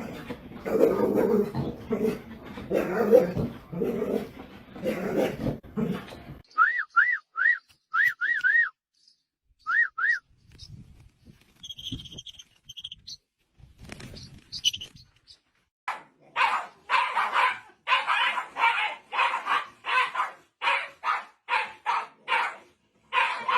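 A dog barking: a dense, rough run of barks for the first six seconds, then steady repeated barks about two a second from about two-thirds of the way in. Between them come a few seconds of short, high chirps that rise and fall.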